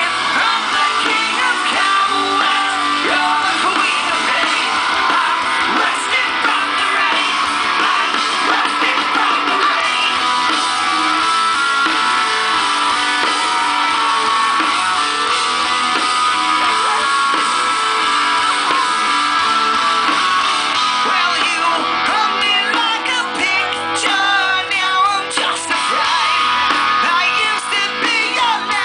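A song with guitar and singing, at a steady, loud level.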